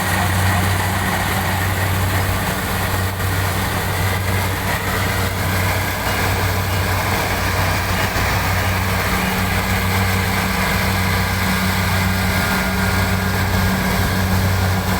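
Combine harvester running steadily in a rice field: a constant low engine hum under an even mechanical rushing noise.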